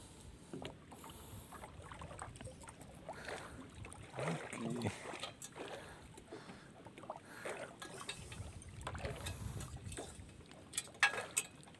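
Water lapping around a small wooden fishing boat, with scattered clicks and knocks as the longline and its hooked catch are handled on board. The loudest is a sharp knock near the end.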